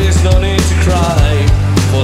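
Rock music: a band with a steady drum beat, bass and a melody line.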